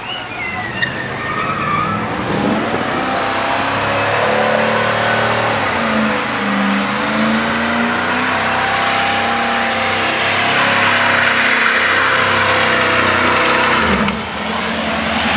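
Chevrolet full-size van doing a burnout: its engine revs hard while the rear tyres spin and squeal on the asphalt for about twelve seconds, then the noise drops off suddenly near the end.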